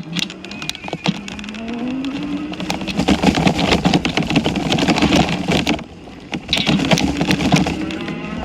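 Car engine running while driving off, its pitch rising as it accelerates, twice.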